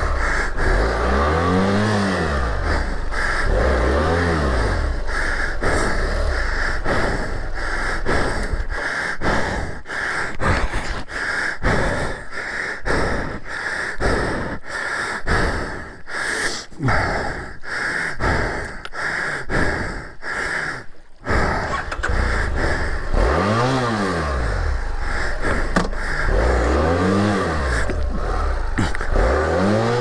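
BMW F650GS motorcycle engine revved hard again and again, the pitch climbing and falling with each blip of the throttle. In the middle comes a choppy stretch of rough noise with brief dropouts, and then the revving resumes.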